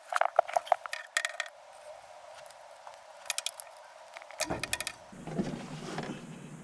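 Small metal objects clinking and rattling in a few short clusters of light clicks, about a second or two apart.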